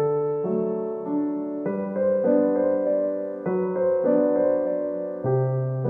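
Background piano music playing sustained chords that change every second or so.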